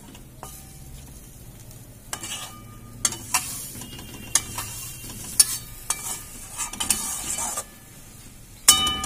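Metal spatula stirring and scraping marinated chicken pieces around a metal pan, with sharp clinks against the pan that ring briefly, loudest about five seconds in and near the end. A faint sizzle of the chicken frying in onion and chili paste runs underneath.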